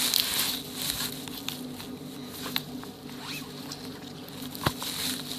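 Handling noise as a camera is set in place close to the ground: rustling and scraping near the start, then a few scattered sharp clicks, the sharpest near the end.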